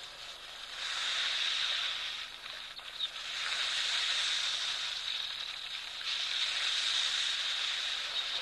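A high hissing buzz that swells up three times, each swell lasting one to two and a half seconds, with a fainter hiss between them.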